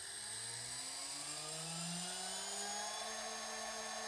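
CNC mill spindle spinning up, its whine rising in pitch and settling at a steady speed about three seconds in, ready for a shallow facing cut with a 6 mm flat end mill.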